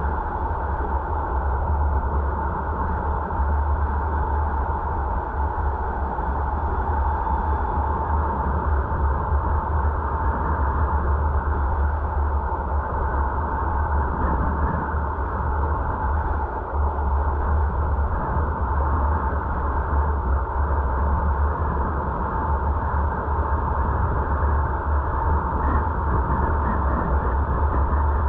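Steady wind and road noise of a car driving, with a deep low rumble and no breaks.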